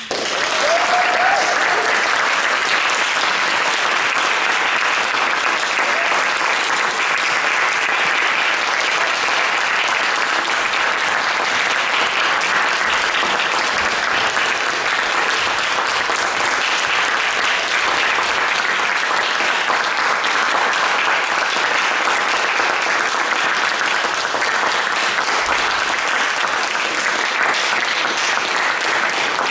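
Audience applauding, breaking out suddenly and holding a steady, dense clapping.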